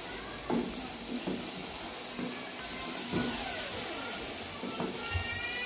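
Mutton pieces frying in oil and spices in an aluminium pot, sizzling steadily while a wooden spoon stirs them, with several scraping knocks of the spoon against the pot about once a second. This is the bhuna stage, the meat being browned in the masala.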